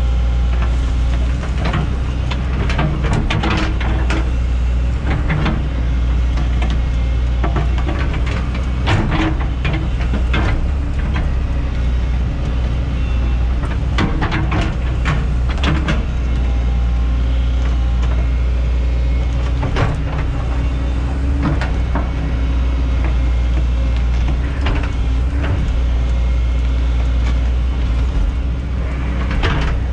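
Hyundai 140 excavator's diesel engine running steadily under load while digging out a tree stump, with scattered sharp knocks and cracks from the bucket working roots and earth.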